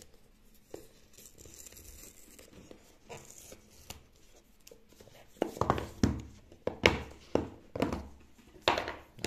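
Paper pull-tab strip tearing along the seal of a cardboard phone box, a soft rasp, then several louder scuffs and knocks of the box and its lid being handled and pulled open in the second half.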